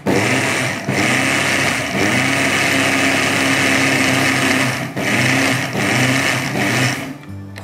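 Electric mixer grinder (mixie) running in short on-off pulses, grinding roasted coriander seeds, nuts and dry coconut in its steel dry-grinding jar to a coarse powder. The motor cuts out briefly several times and stops about seven seconds in.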